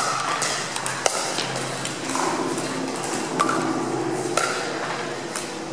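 Pickleball paddles striking a hard plastic ball: about five sharp, separate pocks, each with a short ring, echoing in a large hall. Faint voices murmur under them.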